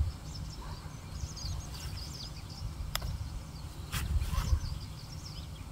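Small birds chirping in short, high calls over a low rumble, with a few sharp clicks about three and four seconds in.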